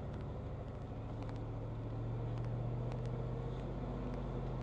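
Vehicle engine running steadily at low speed on an off-road trail, its drone slowly growing louder, with scattered light clicks over it.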